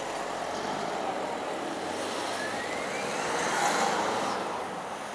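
Motorcade traffic passing: a coach and other road vehicles driving by, a steady rush of engine and tyre noise that swells about three and a half seconds in.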